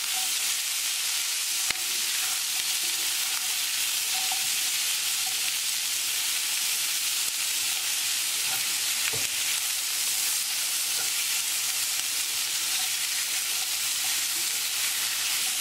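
Crookneck squash and onion sizzling in olive oil in a frying pan over high heat while a spatula stirs them, with a couple of sharp clicks of the spatula against the pan.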